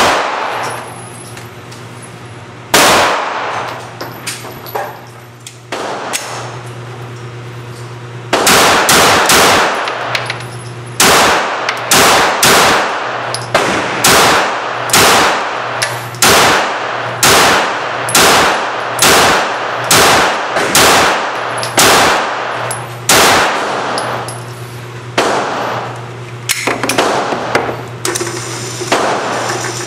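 9mm Glock 17 Gen 4 pistol fired in an indoor range, each shot echoing. A few single shots at first, then a fast even string of about a dozen and a half shots at a little under two a second, then a few more, over a steady low ventilation hum.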